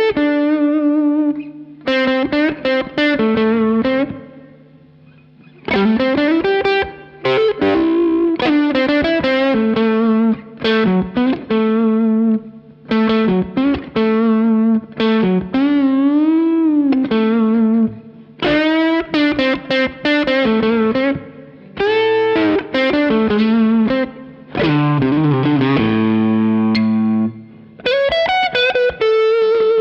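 B&G Little Sister electric guitar through an overdriven Suhr Badger 35 amp, with added reverb, playing single-note lead phrases with string bends and vibrato and a few held chords near the end. Short pauses fall between the licks.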